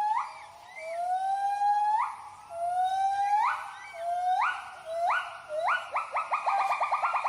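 Gibbons giving their territorial hooting call: a series of long rising hoots, about one a second, that break into a quick run of short notes near the end.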